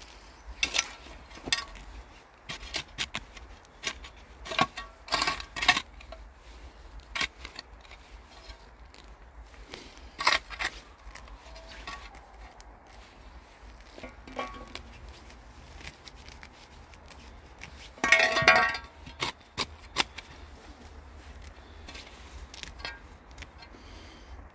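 A small metal hand trowel scraping and digging in dry, gritty soil beside a stone edging, in irregular scratchy strokes. The longest and loudest scrape comes about three-quarters of the way through.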